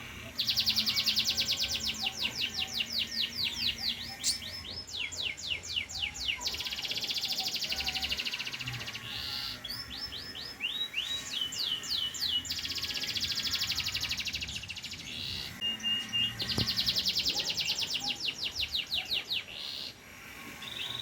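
Domestic canary singing: long fast trills of rapidly repeated high notes, broken by a few phrases of falling whistled notes.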